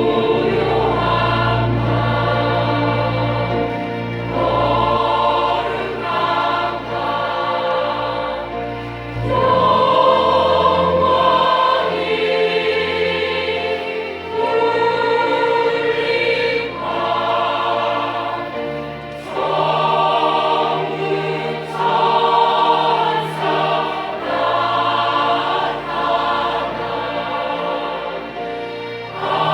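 Church choir singing a Christmas cantata in phrases of a few seconds, over low sustained notes of accompaniment.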